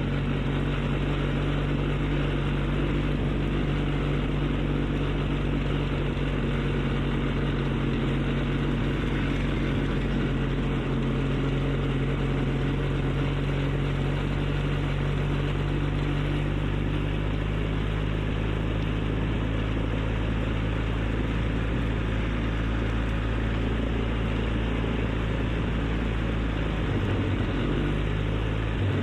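ATV engine running steadily at low revs, its pitch shifting slightly about two-thirds through and dipping briefly near the end.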